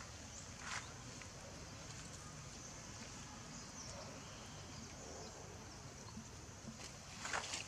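Faint outdoor ambience with a steady high hiss, broken by a few short crisp taps or crinkles: one about a second in and a few more near the end.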